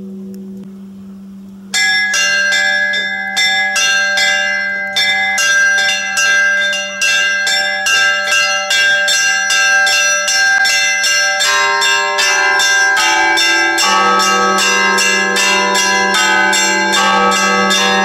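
Several bells of an Orthodox church belfry pealing in quick, rhythmic strikes, with many ringing tones overlapping. Before the peal starts about two seconds in there is a steady low hum, and deeper bells join in about twelve seconds in.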